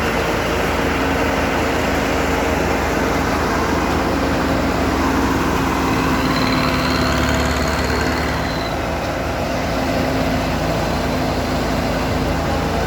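Road roller's diesel engine running steadily, with a faint high whine for a couple of seconds midway.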